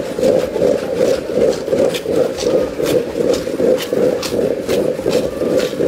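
Steady din of a street protest crowd, with scattered short clicks and rustles close to the microphone.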